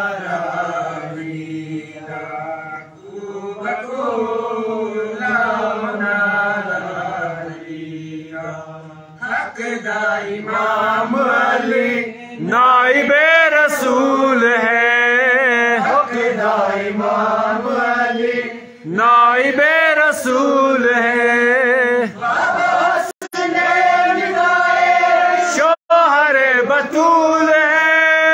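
A man chants a devotional manqabat into a microphone, unaccompanied, in phrases of a few seconds with long wavering held notes and short breaks between them. The sound cuts out twice, very briefly, after the middle.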